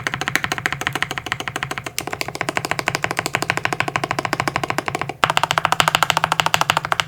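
Mechanical keyboard with linear switches (Alpacas with UHMWPE stems) on a polycarbonate plate, typed on rapidly: a fast, even clatter of keystrokes at about ten a second, with two brief breaks.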